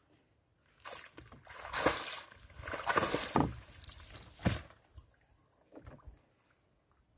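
Wet fishing net being hauled out of the sea and shaken over a small boat: water splashes and pours off the mesh in a run of loud swishes from about one to four and a half seconds in, then only a few drips.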